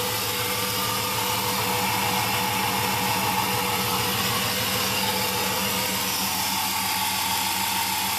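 1999 Dodge Ram's 5.9-litre V8 idling steadily just after a cold start, heard from over the open engine bay. It runs evenly, without a miss.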